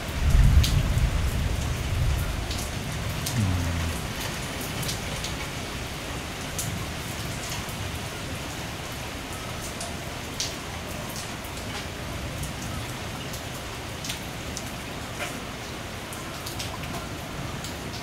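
Heavy rain falling steadily in a thunderstorm, with individual drops ticking sharply on nearby surfaces. A low rumble of thunder swells right at the start, loudest within the first second, and dies away by about four seconds in.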